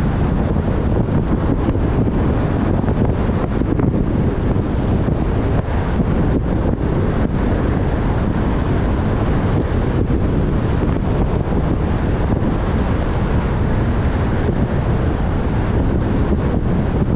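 Steady wind rush on the microphone and low road rumble from a car driving along.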